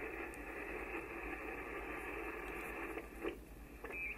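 Kenwood TS-430S HF transceiver's receiver putting out steady static hiss from its speaker on the 40-metre band as the tuning dial is turned. The hiss sinks about three seconds in, with a few short crackles near the end.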